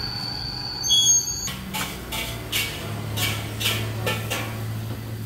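Small tea cups clinking and knocking against a tray as they are handled and set out: a bright ringing clink about a second in, then a series of short clinks about every half second, over a low steady hum.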